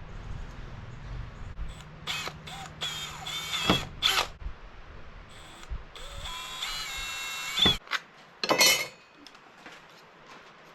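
Electric drill running in several short bursts with a high whine, then one longer run, drilling into a Kydex spacer to fit it onto the knife tang. A low steady hum underneath stops about eight seconds in.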